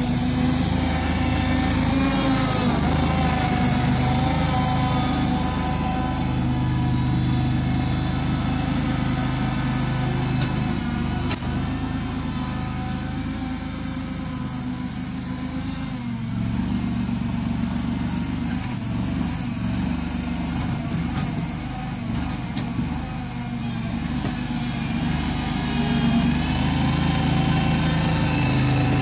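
Small engine of a homemade wheel loader running steadily while it drives and moves snow, its pitch rising and falling slightly with the throttle. It grows quieter midway as the machine moves off and louder again near the end as it comes close.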